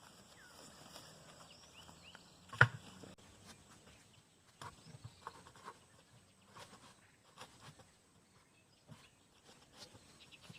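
Footsteps and rustling through grass and brush, with scattered light clicks and one sharp knock about two and a half seconds in.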